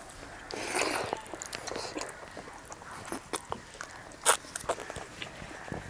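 Close-up wet eating sounds: chewing and lip smacking on a handful of rice and nettle curry eaten by hand, with scattered small clicks and one sharp smack about four seconds in.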